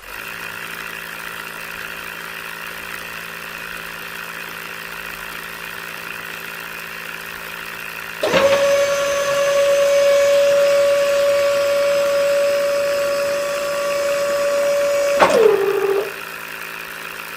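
Small DC motors of a DIY model drilling rig whining steadily. About 8 seconds in a second, louder motor switches on and runs at a steady pitch. It switches off near the end, its pitch falling as it spins down.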